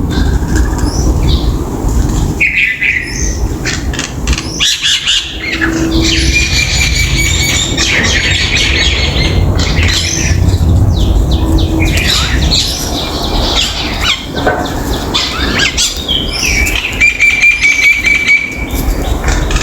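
Common mynas calling: a busy run of short clicks, chatter and a few held whistled notes, over a steady low rumble in the background.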